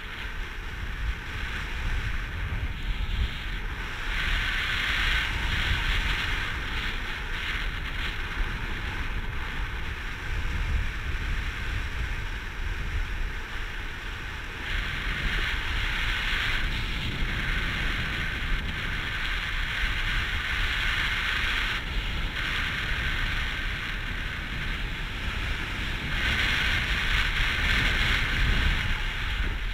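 Rushing airflow buffeting the microphone of a camera worn by a paraglider pilot in flight. There is a steady low rumble, and a hissing rush over it that swells and fades three times.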